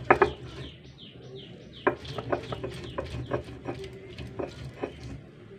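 Stone rolling pin grinding boiled yardlong beans on a stone slab (sil-batta): a steady low rolling rumble with repeated clacks and scrapes of stone on stone, stopping near the end.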